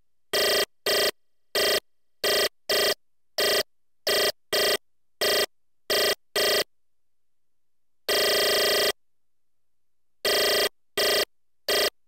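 Hand-built analog noise machine's output, heard straight from the line with no microphone: a buzzy, ringing pitched tone chopped into about fifteen short bursts that switch abruptly on and off in an irregular rhythm, with one longer burst about eight seconds in and dead silence between bursts.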